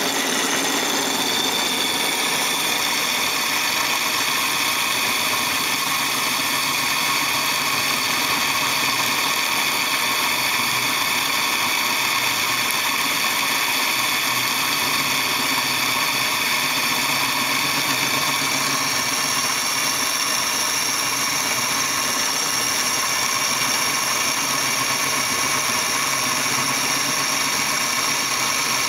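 Metal lathe running steadily while its cutting tool turns down a driveshaft tube, a continuous machine hum with high cutting tones. The high tones change about two-thirds of the way through.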